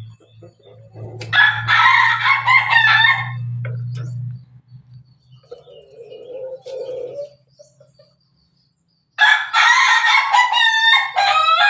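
A rooster crowing twice: a crow of about two seconds starting just over a second in, and a second crow starting about nine seconds in, each breaking up into a few short stepped notes at the end. A steady low hum runs under the first crow and stops about four seconds in.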